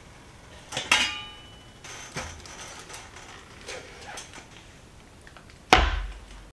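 Stainless steel steamer pot and lid handled with pot holders: a sharp metallic clink with a brief ring about a second in, lighter knocks and rustling, then a heavy thud near the end as the foil-covered pan is set down.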